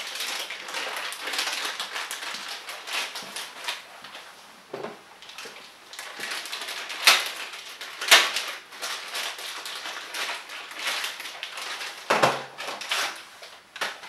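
Irregular crinkling and rustling with scattered sharp clicks and taps, the loudest about seven and eight seconds in and again near twelve seconds: a bottle of compressor oil and its plastic packaging being handled and opened, ready to fill the crankcase.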